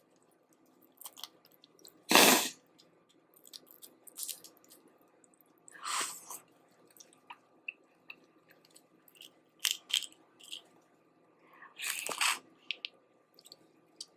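Boiled crawfish being eaten close to the microphone: shells cracking and chewing, scattered small clicks, and three louder short noisy bursts, the first the loudest.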